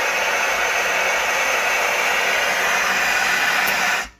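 Steam jetting into an open autoclave chamber through a fully open pilot-operated regulator on a flow test: a loud, steady hiss, a strong flow of steam. It cuts off suddenly near the end.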